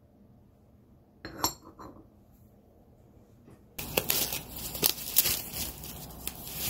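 Tableware being handled: a single clink with a brief ring about a second in, then from about four seconds a run of dishes and cutlery clattering and knocking.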